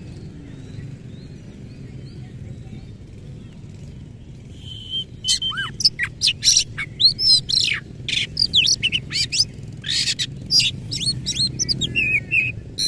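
Male Oriental magpie-robin singing a loud, varied song. After about four and a half seconds with only a low background rumble, it gives a held whistle, then a fast run of sharp notes and sweeping, up-and-down whistles.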